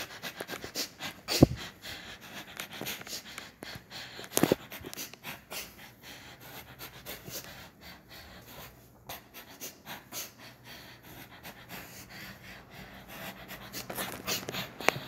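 A person breathing hard close to the microphone, with rustling and clicks from a handheld phone being moved about and two louder knocks, about one and a half and four and a half seconds in.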